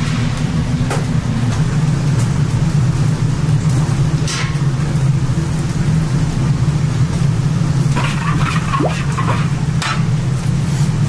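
Steady low roar of a gas wok burner under simmering sauce, with a few scrapes and clicks of a metal spatula against the wok near the end.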